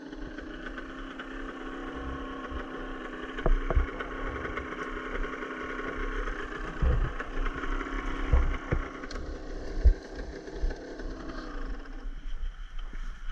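Off-road vehicle's engine running at a steady pitch, with several low thumps along the way; the engine note drops away about eleven seconds in.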